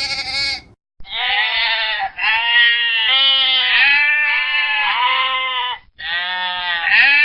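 Sheep baaing loudly: a run of long, wavering bleats separated by brief pauses.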